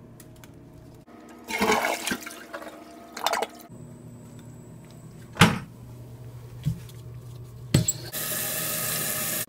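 Water hissing steadily into a toilet tank through a newly fitted float-cup fill valve once the supply stop valve is opened, starting about eight seconds in and cutting off suddenly. Before that come a few short wet handling noises and sharp knocks as the valve is fitted.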